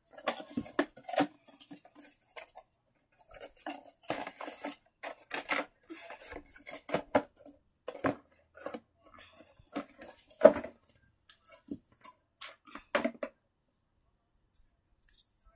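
Irregular clicks, taps and light clatter of small hard objects being handled, a few to several a second, with one sharp knock about ten and a half seconds in. The tapping stops a couple of seconds before the end.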